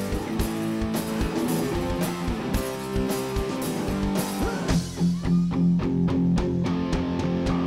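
Live rock band playing: electric guitars, bass and drum kit. About halfway through the cymbals fall away and the guitars hold low chords over steady drum hits.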